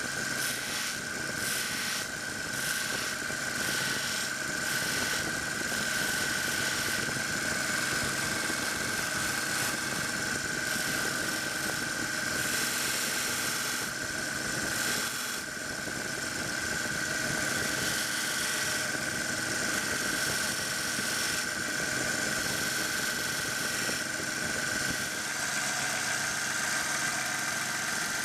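WEN 1x30 belt sander running on a non-woven conditioning belt, with a steady high whine and a hiss that rises and falls as steel ratchet parts are worked against the belt.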